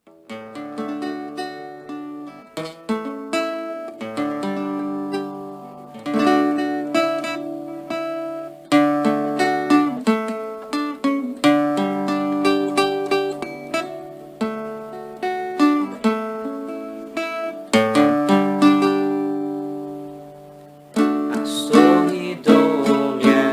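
Instrumental song intro on a plucked string instrument: picked notes and chords in repeating phrases. It fades out a few seconds before the end, then comes back louder.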